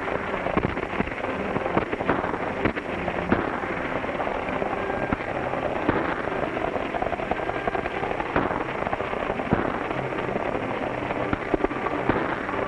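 Several horses galloping: a dense, continuous clatter of hoofbeats, with a few louder sharp cracks standing out now and then.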